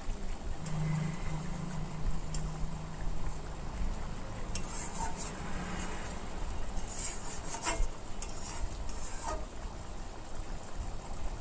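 A metal spatula stirring and scraping through bubbling fish gravy in a wok, with several sharp scrapes and clinks against the pan in the middle and a low hum in the first half.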